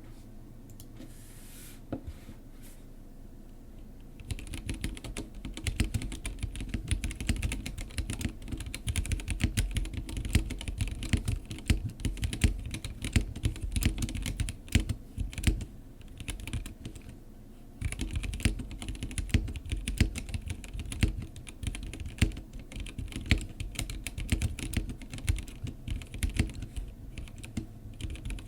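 Typing on a Womier K87 acrylic mechanical keyboard with unlubed Gateron Red linear switches, stock keycaps and factory-lubed clipped stabilizers. There are a few isolated key clicks, then a fast, continuous run of keystrokes starting about four seconds in, with a brief pause in the middle.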